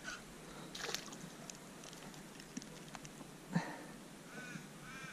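A crow cawing, three short arching calls near the end, over a faint steady background. A few light knocks and clicks come through as well, the sharpest a little past halfway.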